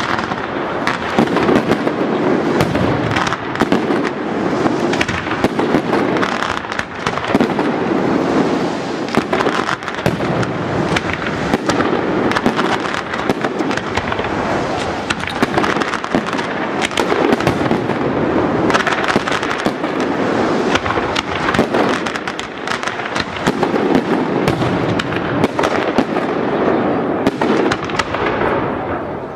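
Aerial fireworks display at full intensity: a dense, continuous barrage of shell bursts and rapid crackling bangs with no pause.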